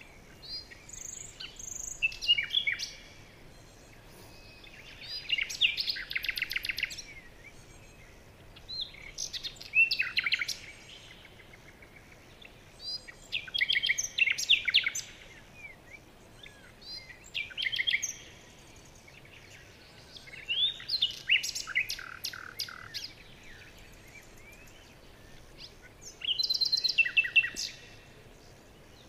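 Bird song: short phrases of rapid high chirps and trills, repeated about seven times at gaps of three to four seconds, with a faint steady hiss between phrases.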